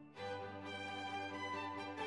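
Instrumental background music with held, sustained notes, briefly dipping just after the start before the next phrase comes in.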